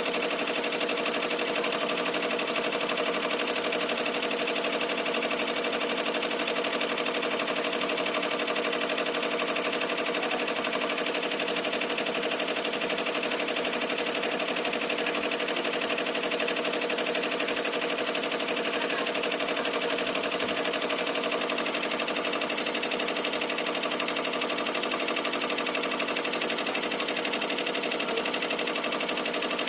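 Ricoma multi-needle embroidery machine stitching lettering at speed: a rapid, even clatter of the needle bar and hoop drive that holds steady.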